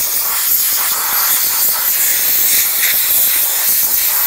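Compressed-air blow gun blowing a steady hiss of air over a truck's rear axle hub, drying off the brake parts cleaner.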